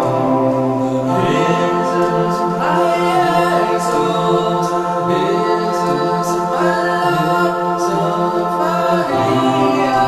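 Music: a slow song with long sung vocal lines that glide up and down, layered like a choir, over held sustained chords. The chords shift about a second in and again near the end.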